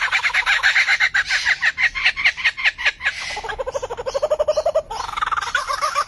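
Lyrebird calling with a fast run of pulsed, chattering notes, about ten a second. Midway the notes drop to a lower trill that rises, then break off briefly and come back higher, climbing near the end.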